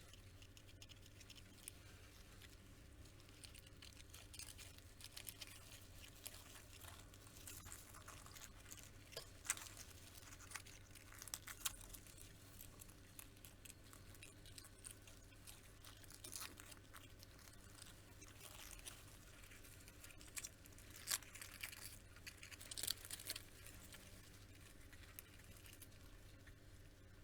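Praying mantis making faint, irregular clicks and scratchy crackles, a few of them sharper than the rest, over a steady low hum.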